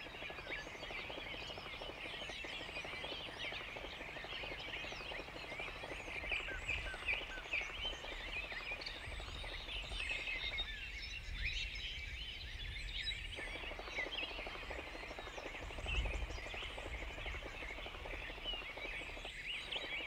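Forest bird chorus: many small birds chirping and twittering at once, short high calls overlapping without a break.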